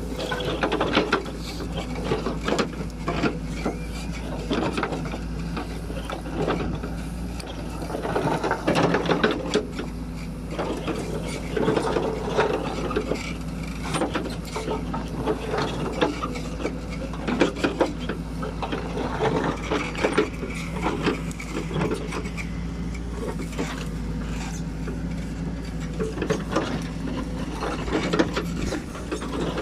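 Caterpillar 434E backhoe loader's diesel engine running steadily while its backhoe bucket scrapes through soil and loose paving stones, with irregular clattering and knocking of stone blocks against the steel bucket and each other.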